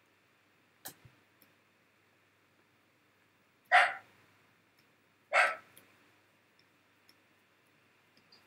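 Two short, sharp bursts of sound about a second and a half apart, with a fainter click about a second in.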